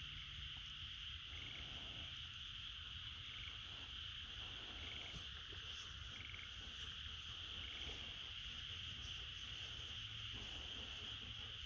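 Steady insect chorus, a continuous high buzz, over a low rumble, with a few faint short chirps every second or two.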